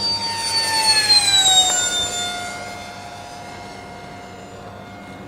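Electric ducted fan of a Habu RC model jet whining as it makes a fast low pass, its pitch dropping as it goes by. It is loudest about a second and a half in, then settles to a steadier, fainter whine.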